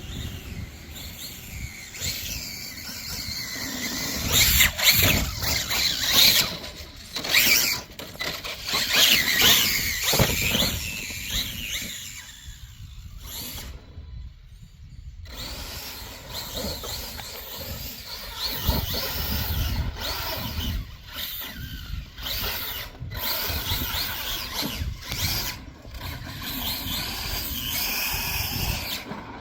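Losi LMT King Sling electric RC monster truck running: its motor and drivetrain whine high, rising and falling in pitch as it speeds up and slows, over a rumble of tyres on the ground.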